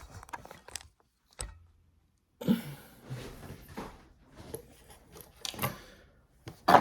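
Light clicks and rustling from handling computer parts by hand, with a dead-quiet gap of about a second and a half early in the stretch.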